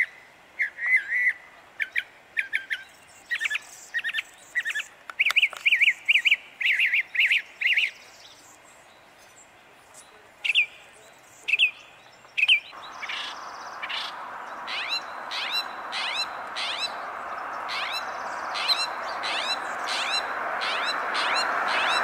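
Northern mockingbird singing, short phrases each repeated several times in quick runs, then a brief lull. About halfway through, the song turns to sharp down-slurred notes about twice a second, over a rushing noise that builds steadily louder.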